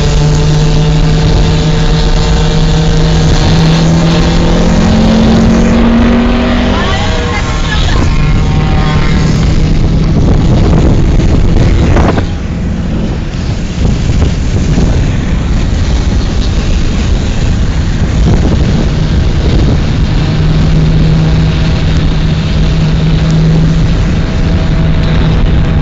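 Tuned two-stroke Yamaha DT motorcycles running hard, heard from inside a car following close behind, with the car's own engine in the mix. The engine pitch climbs about four to seven seconds in, then breaks off and settles into a steady drone.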